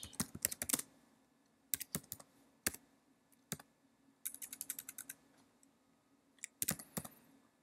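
Computer keyboard typing in short bursts of keystrokes with pauses between, including a quick run of keystrokes about four seconds in.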